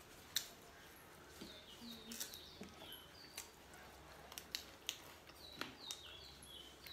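Quiet eating sounds: scattered mouth clicks and smacks as two people chew roti dipped in butter chicken. Faint, repeated short chirping of a bird is heard in the background.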